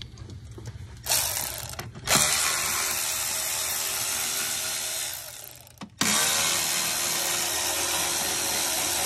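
Cordless power ratchet running in three goes: a short one about a second in, a longer one that fades out after about three seconds, and a steady run from about six seconds on.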